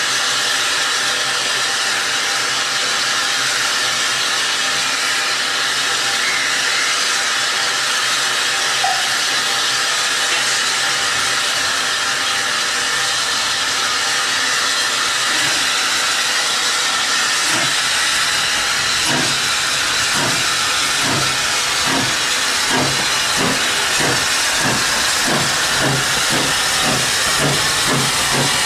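South Eastern Railway O1 class 0-6-0 steam locomotive No. 65 hissing steam while standing, then pulling away: slow exhaust chuffs begin a little past halfway and quicken steadily as the train gets under way, the hiss carrying on beneath them.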